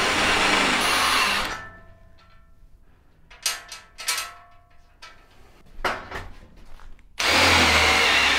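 Hand drill with a countersink bit cutting into a steel plate, a steady grinding whir that stops about a second and a half in. A few short knocks follow, and the drill starts cutting the next hole near the end.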